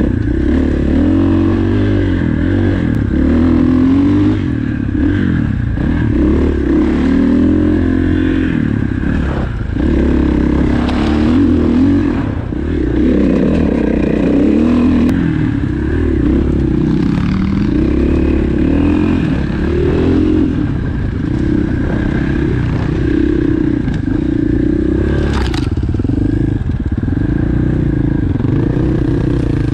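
Dirt bike engine running at low speed on rough wooded singletrack, its pitch rising and falling with the throttle. Frequent knocks and clatter sound throughout, with one sharp knock about 25 seconds in.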